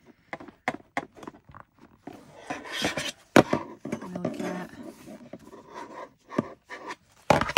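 Ribbon being pulled through a thick stack of journal pages: paper rustling, with the black plastic binder clips clicking, knocking and scraping on the wooden desk, and one louder knock near the end.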